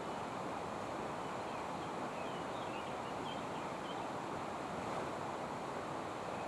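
Steady rain falling, an even hiss with no letup. A few faint high chirps come through about two to four seconds in.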